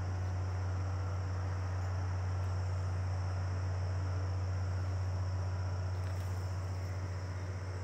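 Crickets trilling steadily in the background over a constant low hum.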